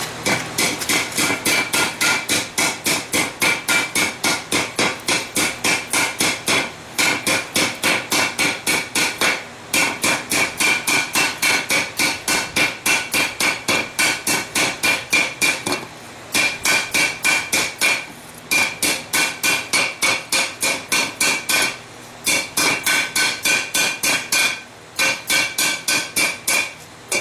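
Hand hammer striking the hot rim of a forged steel bell over the anvil horn, about three to four blows a second with a ringing note on each, stopping briefly several times. The blows are flaring the bell's rim outward.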